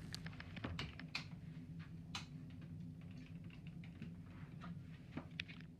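Faint, scattered light clicks and taps over a steady low hum.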